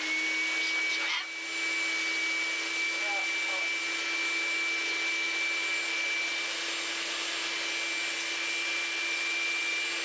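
Hand-held hair dryer running: a steady motor whine at one pitch over rushing air, with a brief dip about a second in.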